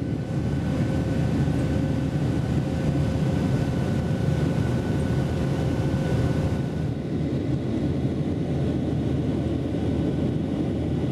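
Steady roar of a jet airliner's engines heard inside the passenger cabin in flight: a deep rumble with a faint, even whine on top.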